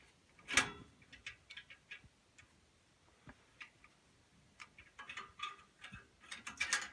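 Faint, scattered clicks and taps of hands working on furnace parts, with one sharper click about half a second in and a quicker run of small clicks near the end.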